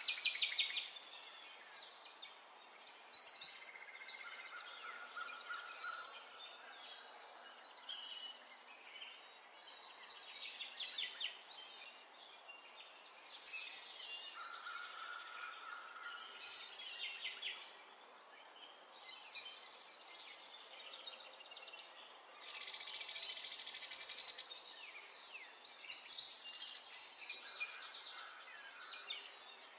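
Bird song: high chirps and fast trills coming in phrases every few seconds, with a few short steady whistled notes between.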